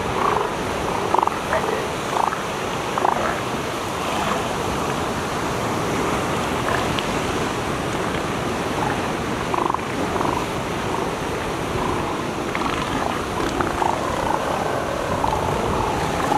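Northern elephant seals on a crowded haul-out beach giving short calls here and there, with a longer wavering run of calls near the end, over a steady rush of surf and wind.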